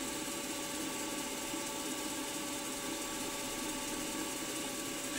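Milling machine running with its spindle turning steadily, unloaded, with an edge finder fitted: an even motor hum with a faint steady whine.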